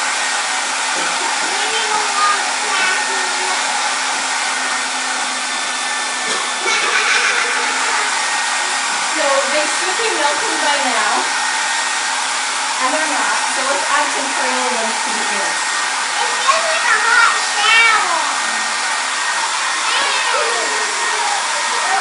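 Handheld hair dryer running steadily, blowing hot air onto a row of wax crayons to melt them.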